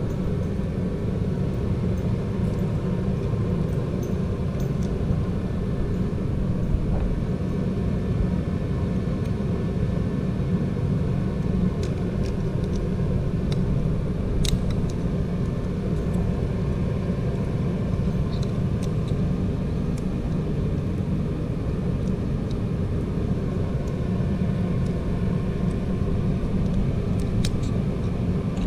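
A steady low rumble, with a few faint sharp clicks from hand tools working on the engine's valve train.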